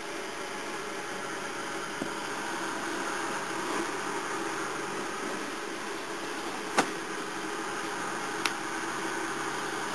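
Steady background hum and hiss of room noise. Three short sharp clicks break through it: a faint one about two seconds in, the loudest near seven seconds, and another a second and a half later.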